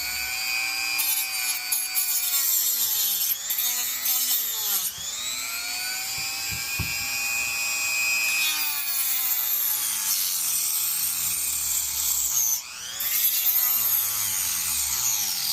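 Rotary tool with a small saw blade cutting through the plastic housing of a dryer control board, its whine sagging in pitch and recovering as the blade bites and eases off. The cut pauses briefly about three-quarters of the way through, then the tool picks up again.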